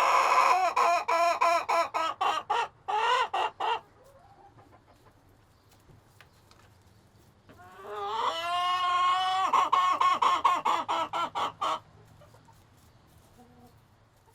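Chickens in a coop calling twice, about seven seconds apart. Each call starts with a long rising note and breaks into a quick run of short, choppy notes, over a faint low hum.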